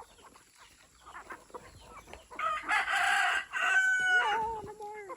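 A rooster crowing once, one long call starting about two and a half seconds in, held and then dropping in pitch at the end.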